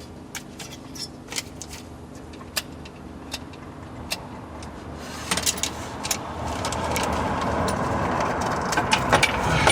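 Small metal clinks and clicks of steel washers, a sleeve and a bolt being handled and fitted for a seat-belt anchor. From about five seconds in, a rushing noise builds and grows louder toward the end.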